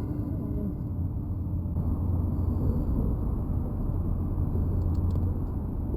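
Steady low rumble of outdoor background noise, with a few faint ticks about five seconds in.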